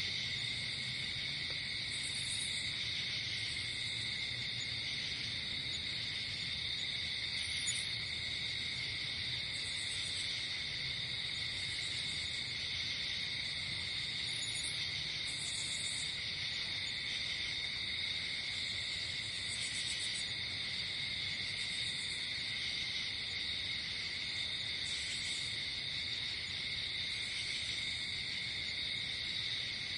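Night chorus of crickets and other insects: a continuous, steady high-pitched trill, with shorter, higher buzzy calls breaking in every second or two.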